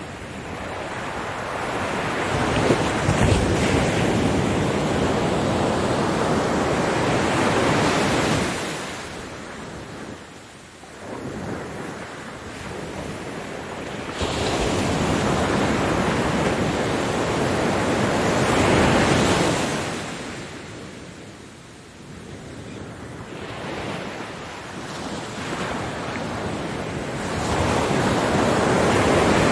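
Ocean waves breaking on a beach, coming in slow surges: each wave swells into a loud crash and then washes out and fades. The surges come about every ten seconds.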